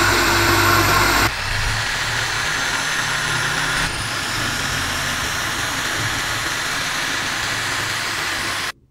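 Rotary tool with a sanding drum running at high speed, grinding rust off a bent steel rod, a steady whine over gritty abrasive noise. The sound changes abruptly twice and cuts off sharply just before the end.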